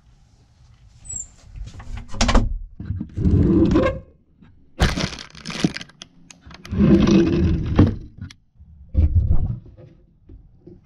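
Wooden kitchen cabinet doors opened and shut, with things knocked and shifted about inside, in about five short bouts of knocking and rattling.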